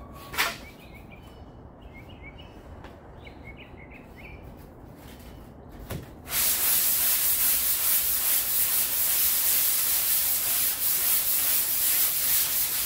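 Hand sanding of Bondo body filler on a car's quarter panel with a small piece of sandpaper, starting about halfway through as a loud, steady scratchy hiss. Before that it is fairly quiet, with a sharp click just after the start.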